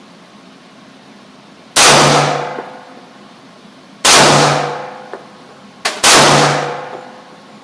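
Three gunshots about two seconds apart, each with a ringing echo that dies away over about a second. A short click comes just before the third shot.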